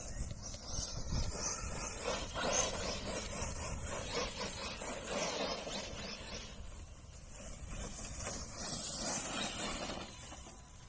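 Arrma Big Rock RC monster truck driving off-road, a hissing rush of tyres and drivetrain that swells and fades, falling away near the end.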